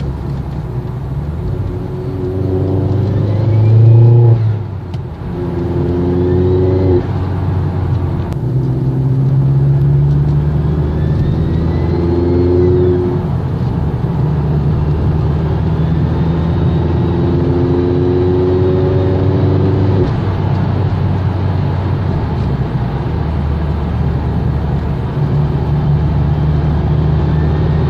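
Vauxhall Astra VXR's turbocharged four-cylinder engine pulling under acceleration several times, its note rising and then falling away between pulls. A faint high turbo whistle rises and falls with each pull, loudest about four seconds in.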